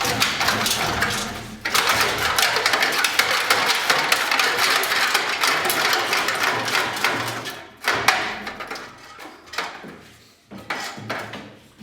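Rusted-out muffler on a 1998 Furukawa 345 wheel loader being yanked and shaken by hand: rapid metal rattling, scraping and knocking for about eight seconds, then a few separate clunks. The muffler stays stuck in place despite its loose collar.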